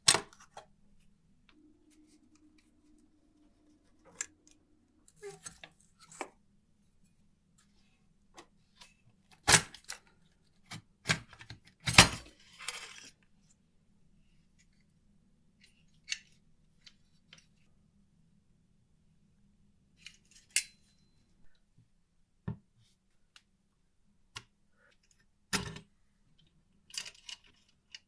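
Scattered clicks, knocks and scrapes of small hard parts being handled, the loudest two around ten and twelve seconds in, with a faint steady low hum underneath for much of the time.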